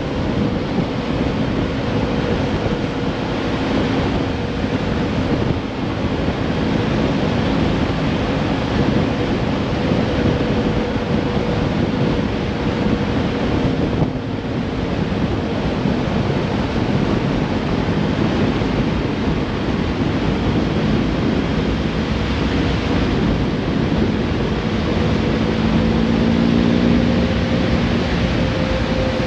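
Vehicle driving along a road at speed: a steady rush of wind and road noise with a faint steady engine hum underneath.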